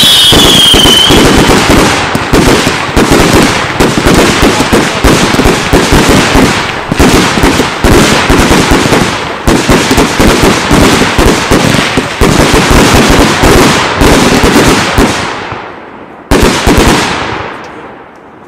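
Daylight fireworks battery firing a rapid, dense stream of crackling bangs and reports, with a falling whistle that ends about a second in. The firing thins out after about fifteen seconds, gives one last short burst, then dies away.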